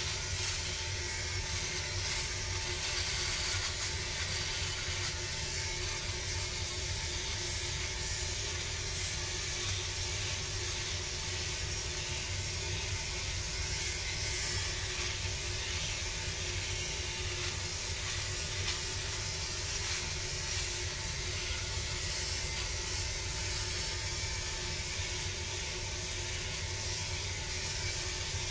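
Philips OneBlade electric shaver running steadily as it is drawn over beard stubble on the jaw and neck: an even motor hum with a hiss over it.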